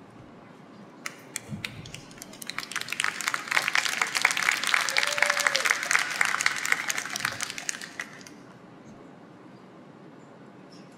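Small audience clapping: a few scattered claps about a second in build into applause that swells and dies away about eight seconds in.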